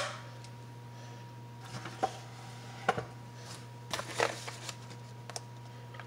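A plastic food pouch being worked open by hand, giving a few short crinkles and rustles, more of them in the middle of the stretch, over a steady low hum.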